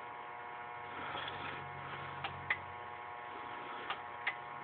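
Steady mains hum and buzz through the stereo fed by a Realistic Lab 1500 turntable, with no music playing. There are a few short clicks: two about two seconds in and two more near the end.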